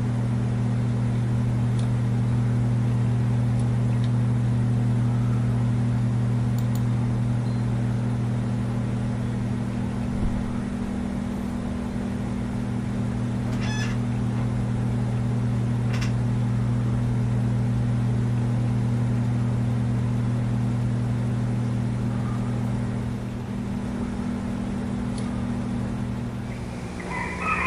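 Steady low hum over an even hiss, with a few faint clicks scattered through.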